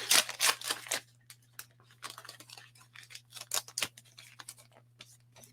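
Trading-card pack wrapper being torn open, a quick run of raspy rips and crinkles in the first second, then quieter scattered rustles and clicks as the cards are handled, over a faint steady low hum.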